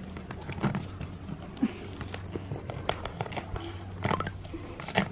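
Irregular sticky crackling and sharp clicks as hands pull at and handle a bin coated in tacky, half-cured polyurethane expanding foam, working it loose from the asphalt it has stuck to. The loudest click comes near the end.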